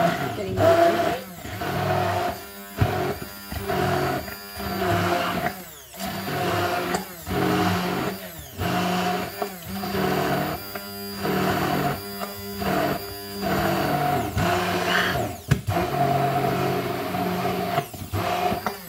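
NutriBullet immersion blender running with its blade down in a beaker, chopping through frozen smoothie ingredients. It goes in repeated short bursts with brief breaks, more than a dozen times.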